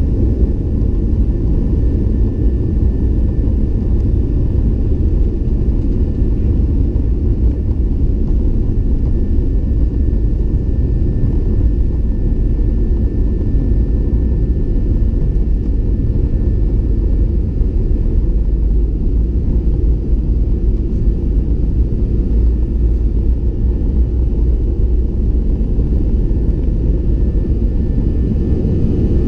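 Boeing 737-800 cabin noise during the takeoff roll: its CFM56-7B engines at takeoff power make a loud, steady low rumble. A faint steady high whine runs over it.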